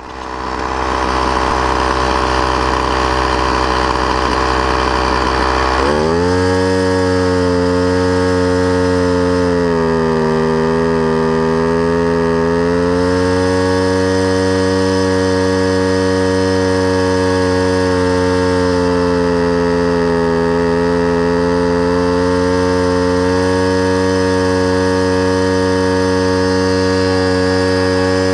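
Poulan string trimmer's small two-stroke engine running while its carburetor adjustment screw is turned with a screwdriver. The engine note changes abruptly about six seconds in to a clear steady hum, then its pitch sags and comes back up twice as the setting changes.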